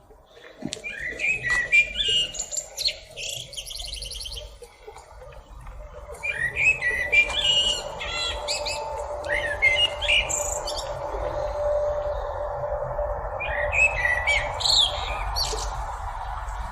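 A black bird singing: three bouts of varied high chirps, whistles and harsher squawk-like notes, with short pauses between them. About six seconds in, a steady low hum starts underneath.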